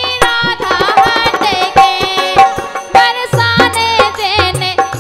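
A woman singing a traditional Bundelkhandi Kartik folk song, accompanied by harmonium and a dholak drum beating a steady rhythm.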